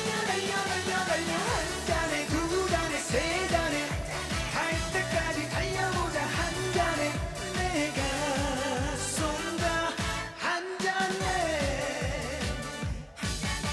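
Korean trot song performed live over an amplified backing track with a steady beat and a sung melody; the music ends suddenly shortly before the end.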